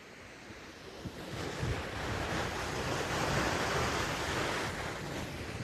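Steady rush of falling water from a waterfall, growing louder about a second in. Low gusty rumble of wind on the microphone underneath.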